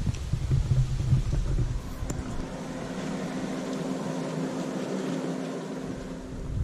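Wind rumbling on the microphone, then a steady engine hum at an unchanging pitch for about four seconds.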